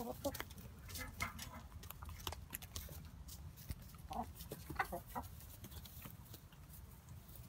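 Hens clucking softly as they eat: short low clucks scattered through, bunched about four to five seconds in, among many small sharp clicks of beaks pecking at food in straw.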